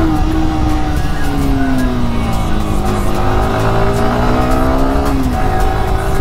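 Yamaha R15 V3's 155 cc single-cylinder engine heard from the rider's seat while riding: the engine note falls as the bike slows, then climbs again under acceleration and drops sharply about five seconds in. Wind noise rumbles underneath.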